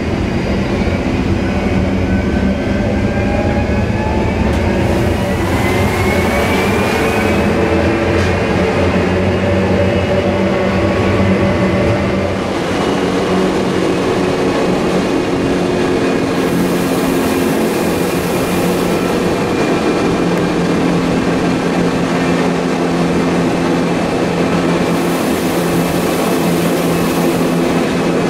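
Electric rack railway train of the Montreux–Glion–Rochers-de-Naye line running, with a steady mechanical drone and a whine that rises in pitch about five seconds in, then holds steady as the train climbs.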